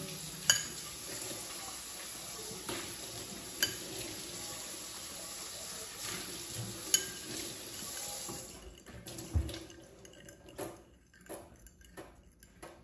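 A metal fork scraping and clinking against a ceramic bowl as raw eggs are beaten, with a few sharp taps of the fork on the rim. A steady hiss runs underneath and stops about nine seconds in.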